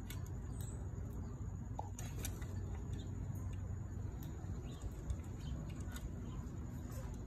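Faint scattered clicks and light taps at irregular times, over a steady low rumble: a green Amazon parrot's beak and feet gripping and knocking on a wooden perch as it climbs about.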